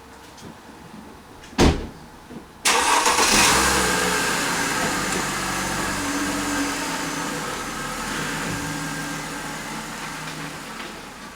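A sharp click, then a car engine starting suddenly about a third of the way in and settling into a steady idle that slowly fades away.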